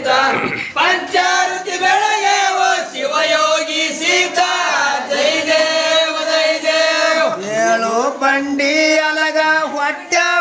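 A group of men singing a Kannada devotional aarti song together in a chanting style, loud and continuous.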